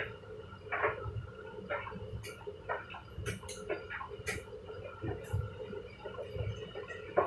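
Washer-dryers running a wash: the drum tumbles with water sloshing, giving a low swell and a knock or splash about every second over a steady motor hum.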